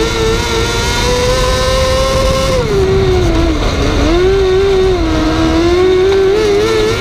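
Onboard sound of a wingless 600 micro sprint's 600cc motorcycle engine at racing speed: the pitch holds high, falls about three seconds in as the driver lifts for the turn, then climbs back on the throttle and rises again near the end. A steady rush of wind and track noise runs underneath.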